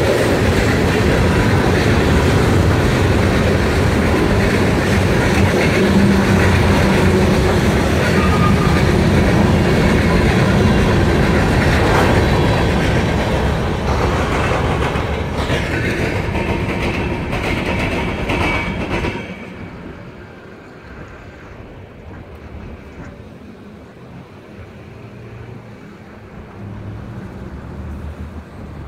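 Norfolk Southern freight train's cars, covered coil cars and then covered hoppers, rolling past on the track, loud and steady with occasional wheel clacks. About 19 seconds in, the last car goes by and the sound drops off sharply to a low background.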